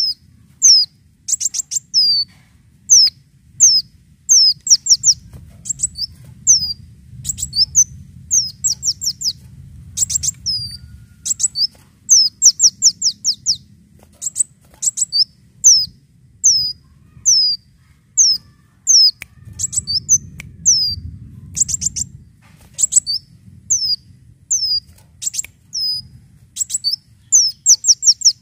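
A sunbird (kolibri daun) singing a rapid string of high, downward-sweeping chirps, some single and some run together in quick rattling bursts, with short pauses between phrases. A faint low rumble sits beneath the song.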